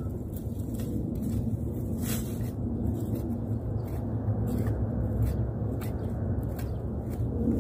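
A kitchen knife digging and scraping through loose garden soil, faint scrapes over a steady low background rumble.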